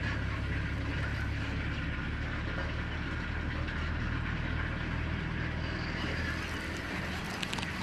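Boat motor running steadily with a low, even hum, and a few light clicks near the end.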